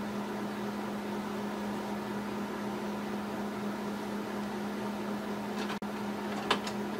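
A steady low hum with a hiss of background noise, with a light click near the end.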